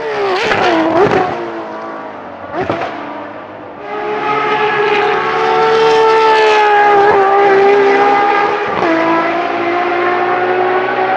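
Performance car engine revved sharply twice, then held at high revs in a sustained howl, its pitch stepping down at a gear change about nine seconds in.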